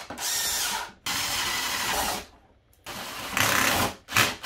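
Cordless power drill boring holes through a plastic electrical enclosure, running in bursts of about a second with short stops between, then a brief burst near the end.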